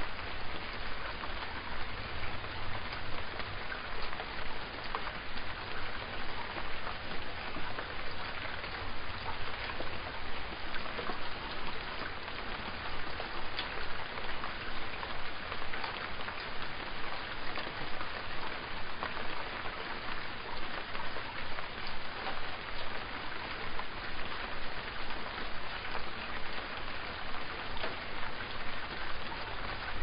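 Steady rain falling, a dense even hiss of drops with many small individual ticks.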